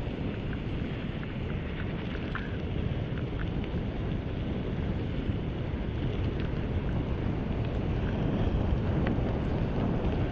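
Wind rushing over the microphone of a road bike moving at speed, with steady tyre hiss on wet asphalt and scattered light ticks.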